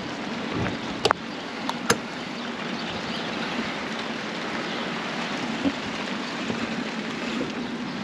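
Steady rushing noise of wind and rain outdoors, with two sharp clicks about one and two seconds in.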